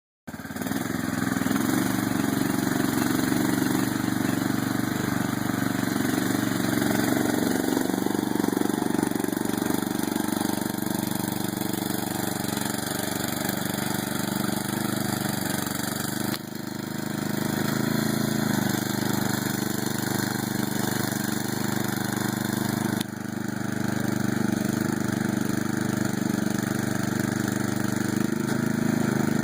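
Lawn mower engine running steadily, with a brief drop in level about halfway through.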